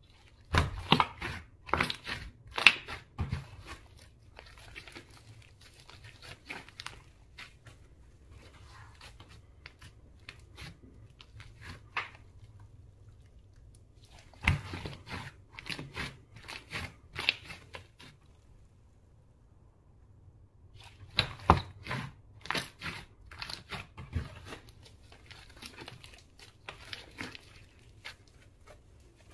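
Slime being mixed and squeezed by hand, giving bouts of sharp crackling and popping clicks with quieter crackles between. It happens in three bouts: at the start, about halfway through, and again a few seconds later.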